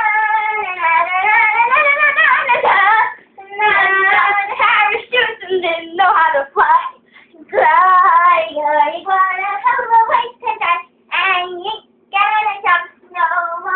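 Young girls singing loudly without accompaniment, in long wavering notes broken by short pauses, the phrases turning shorter and choppier near the end.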